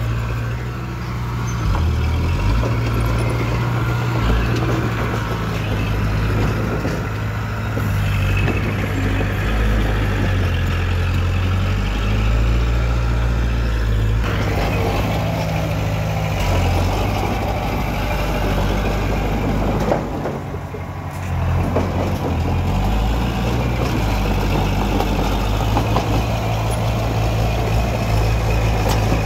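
Small Komatsu crawler bulldozer's diesel engine running under load as it pushes stone fill, its pitch shifting up and down as the load changes. It eases off briefly about twenty seconds in.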